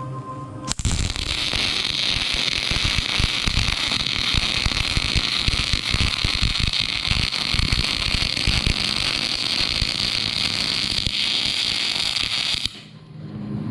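Wire-feed (MIG) welder arc crackling steadily while running a weld bead, starting suddenly about a second in and cutting off abruptly near the end.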